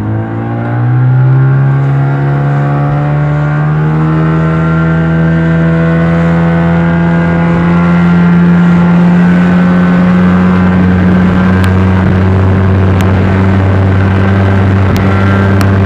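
Speedboat engine running hard under throttle, heard from on board: a loud, steady drone that climbs slowly in pitch over the first several seconds, then holds steady.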